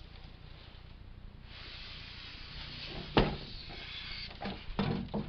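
Styrofoam packing pieces being pulled out of a cardboard box, scraping against the cardboard, with one sharp knock about three seconds in and a few smaller knocks near the end.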